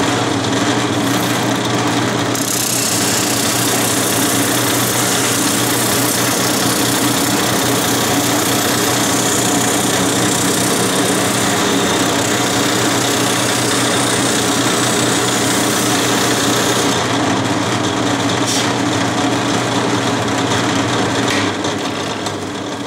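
Drill press spinning a sanding drum, with a steady motor hum. The hiss of wood edges being sanded against the drum starts about two seconds in and stops about fifteen seconds later.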